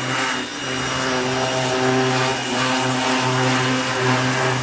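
Ryobi 1600 PSI electric pressure washer running steadily: the motor and pump hum under the hiss of water spraying from the wand.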